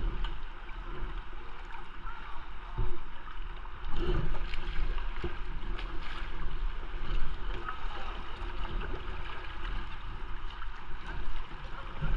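Kayak paddle strokes splashing and river water rushing and lapping around the hull, with a few louder splashes, over a low rumble of wind on the microphone.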